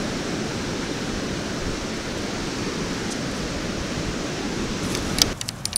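Steady rushing noise of wind blowing over the microphone, with surf behind it. Near the end it cuts off suddenly and a few sharp metallic clicks follow, the rattle of a perforated metal sand scoop.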